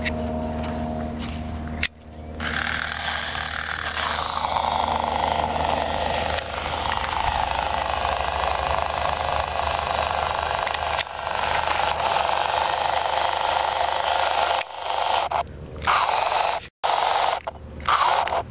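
Small RC car's electric motor running at full throttle with its wheels spinning in mud, the car stuck with a wheel off the ground. The whine starts about two seconds in, sags in pitch a little later, and cuts in and out in short spurts near the end.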